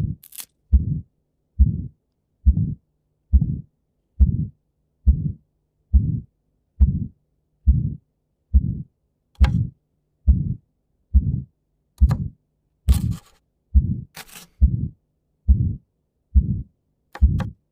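Recorded heartbeat with the ejection systolic murmur of aortic stenosis: a crescendo-decrescendo murmur between the first and second heart sounds, repeating regularly at about 70 beats a minute. A few short sharp clicks come in the second half.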